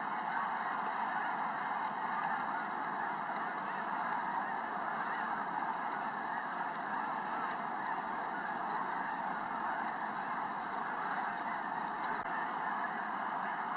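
A huge flock of snow geese calling all at once: a steady wall of overlapping honking calls, with no single bird standing out.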